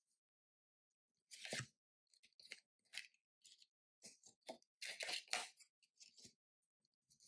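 Tarot cards being dealt from the deck and slid into a row on a table: a run of soft, quick card slides and taps, loudest about a second and a half in and again around five seconds in.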